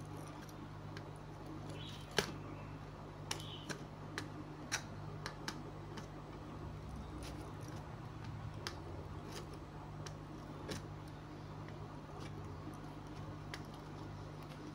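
Light, sharp clicks and taps of small hand tools and parts being handled, scattered irregularly, the loudest about two seconds in, over a steady low hum.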